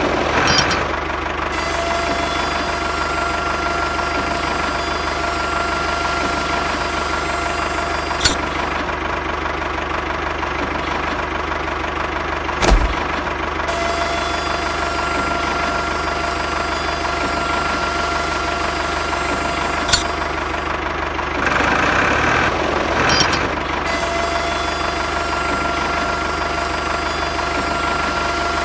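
Tractor engine idling steadily, with an even knock and a steady high whine over it that drops out twice. There are a few sharp clicks and a brief louder stretch near the end.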